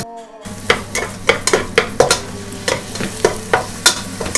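Spoon stirring vegetables frying in a pan: irregular scraping and knocking strokes against the pan, about two to three a second, over a steady sizzle.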